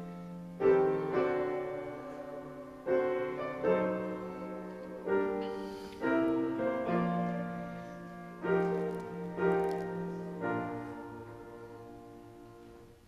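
Grand piano played slowly in sustained chords, a new chord struck every second or so. The last chord, struck about ten and a half seconds in, rings on and fades away.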